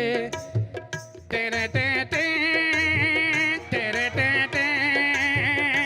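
Instrumental interlude of a Telugu song: a drum beat with short notes, then about a second and a half in a held, wavering high melody line comes in over the steady beat.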